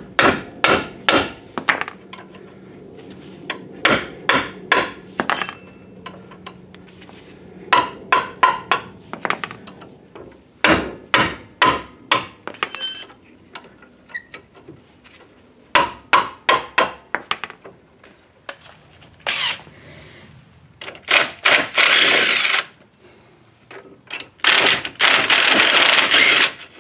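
Groups of sharp hammer or mallet blows on a wrench, breaking loose the 17 mm caliper bracket bolts on a 2004 Honda Civic's front brake. Near the end a DeWalt cordless impact driver runs in three bursts on a bracket bolt, the last about two seconds long.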